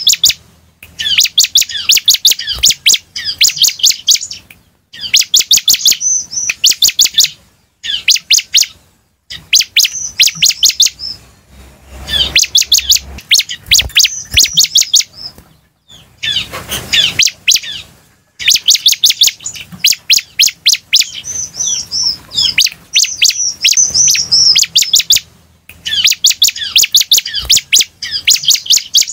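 Prinia (ciblek) song: quick bursts of sharp, high chirps, several notes a second, repeated again and again with short breaks between.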